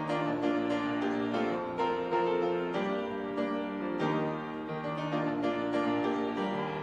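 Grand piano playing slow, sustained chords, with the harmony changing every second or so.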